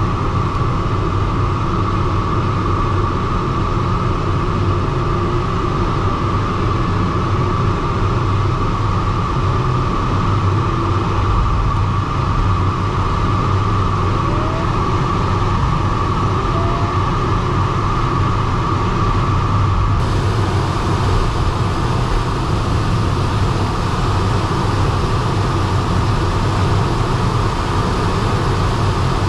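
Steady rush of air around a DG303 glider's canopy, heard from inside the cockpit, low and dense, with a steady high whistle above it. About two-thirds of the way in, the whistle weakens and the hiss turns brighter.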